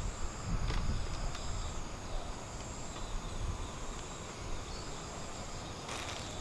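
Steady high chirring of insects in the background over a low rumble, with brief rustles early on of cardboard and a plastic sack being handled, and a denser crinkling rustle near the end.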